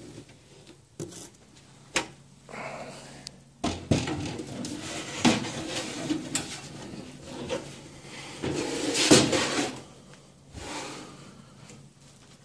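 Sheet-metal parts of an equipment rack being handled: a few sharp clicks, then several seconds of metal scraping, sliding and knocking, loudest about nine seconds in.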